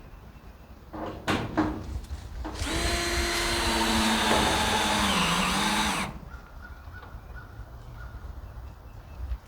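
Battery-powered saw running and cutting through gutter for about three and a half seconds, its motor pitch sagging under load near the end before it cuts off suddenly. A few sharp knocks come just before it starts.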